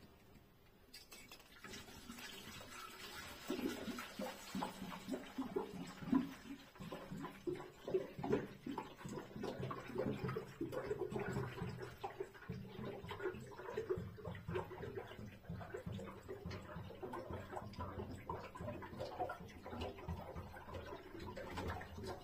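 Green heating fluid poured from a plastic jug into a radiator heating system's filler, gurgling and glugging irregularly as it runs in slowly. The flow starts about a second in.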